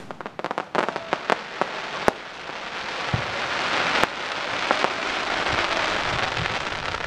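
Aerial fireworks going off: a run of sharp pops and a few louder bangs, then a dense crackle that builds up through the second half as the burst stars fall.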